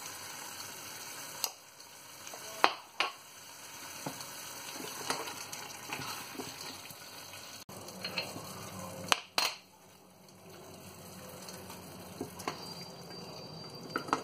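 Cubed butternut squash sizzling in a stainless steel pot as it is stirred with a silicone spatula, with a few sharp knocks, in pairs about 3 seconds and 9 seconds in.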